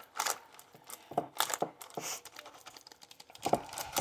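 A spoon scraping and pressing thick bread dough into a parchment-lined glass loaf pan, with irregular light knocks and taps and some paper crinkling.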